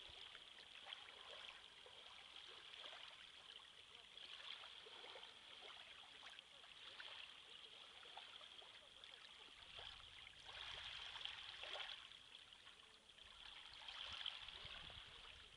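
Small waves lapping and trickling at a sandy shore, faint, swelling louder about ten and fourteen seconds in, over a steady high-pitched hiss.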